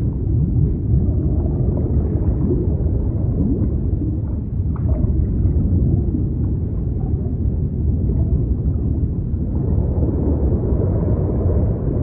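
Underwater marine-life ambience: a steady, deep rumble of moving water with faint short gliding tones scattered through it.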